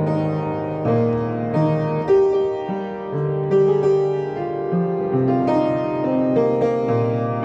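Piano playing a slow piece: held bass notes under a simple melody, with a new note or chord struck about every half second to second.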